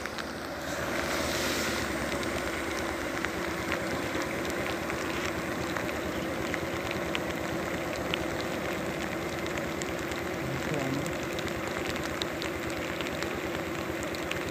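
Steady rain with scattered drops ticking close by, over a low steady hum.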